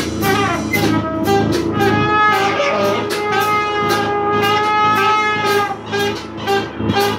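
A small live band of brass horns and drums playing, the horns holding long notes over a steady beat of drum and cymbal hits.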